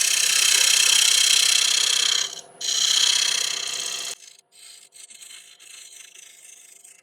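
Turning tool cutting spinning Monterey cypress on a wood lathe: a steady scraping hiss in two passes with a short break between, then the tool lifts off about four seconds in and only the lathe's faint running hum and small ticks remain.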